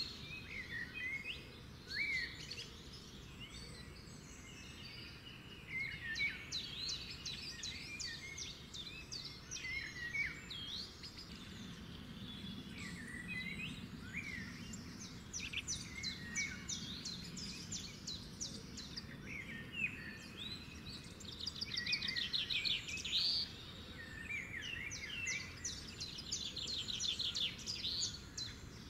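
Several birds chirping and singing, with quick rising and falling chirps and rapid trills, over a faint steady background noise.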